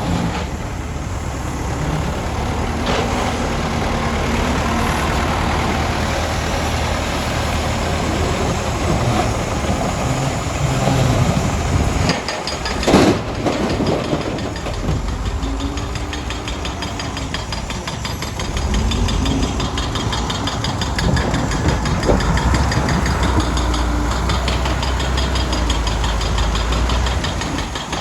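Heavy diesel earthmoving machinery running, its engine note rising and falling now and then as it works, with a short knock about halfway through.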